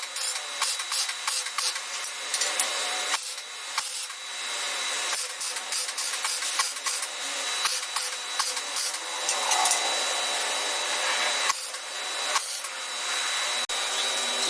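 Power tool abrading steel, most likely an angle grinder: a continuous rough scraping hiss that rises and dips irregularly as the tool bears on the work, over a steady high whine.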